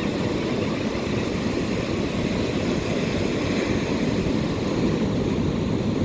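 Steady rush of ocean surf mixed with wind buffeting the microphone, a low, even noise with no distinct events.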